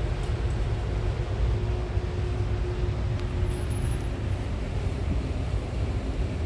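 Steady low rumbling background noise, with a faint steady hum through the middle.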